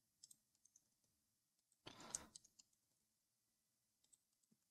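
Near silence, with a short cluster of faint clicks from a computer mouse and keyboard about two seconds in.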